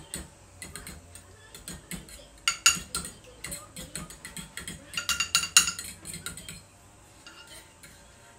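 A metal spoon clinking rapidly against a small ceramic bowl as egg is beaten in it, the taps loudest in two quick spells midway and stopping about two seconds before the end.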